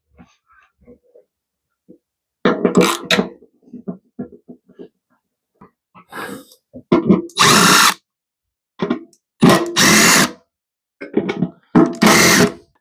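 Cordless drill/driver running in several short bursts, backing out the T20 Torx screws of a motorcycle fuel tank's pump mounting plate, with small clicks and taps of handling in between.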